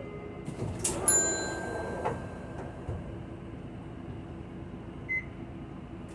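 Steady engine and road rumble heard inside a moving route bus. About a second in there is a sharp click followed by a brief metallic ring that fades out within about a second.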